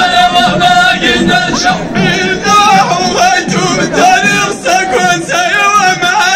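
Ahidous group singing: a line of Amazigh performers chanting together in long, wavering, ornamented vocal lines, with bendir frame drums beating along.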